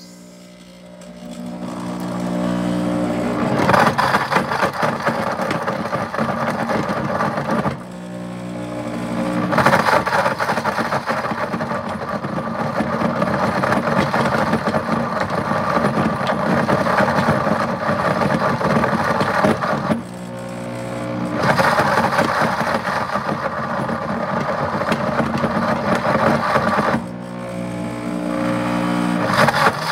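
Pampered Chef Deluxe Cooking Blender motor running on a custom blend, grinding cubes of Parmesan cheese. It starts with a rising hum and then runs at full speed, with the chunks rattling and grinding inside the jar. Three times it briefly slows and spins back up.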